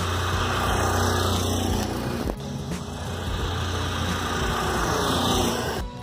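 A motorcycle riding past, its engine and tyre noise swelling as it approaches and fading as it goes by. This happens twice, with an abrupt cut between the two passes.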